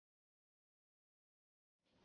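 Near silence: the soundtrack is empty.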